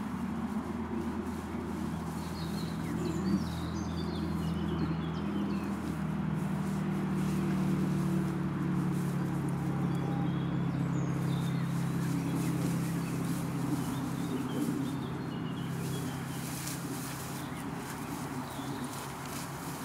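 A steady low drone like a distant motor, growing louder about six seconds in, with a few faint bird chirps in the first seconds.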